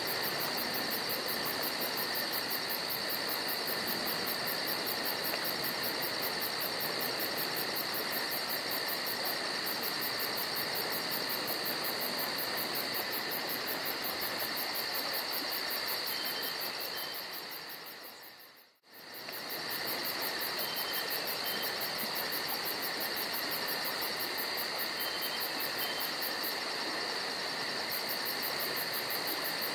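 Steady outdoor ambience of crickets chirping in a fast, even pulse over a constant rush of flowing creek water. The whole sound fades briefly to silence about two-thirds of the way through and then returns.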